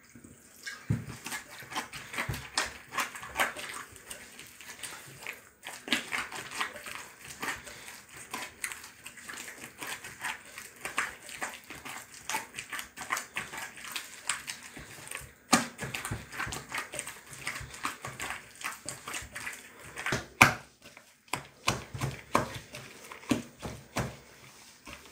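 Soft, wet bread dough being squeezed and gathered by a gloved hand in a glass bowl: a continuous run of irregular sticky squelches and light knocks against the bowl, with a couple of louder knocks in the second half. The dough has just been loosened with a little more water and is being brought together with the fingertips rather than kneaded.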